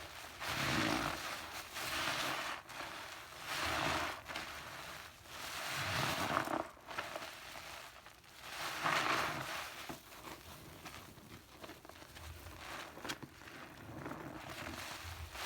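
Crackling, rustling noise of Pinalen cleaner in a bath, swelling and fading every two to three seconds, with scattered small clicks.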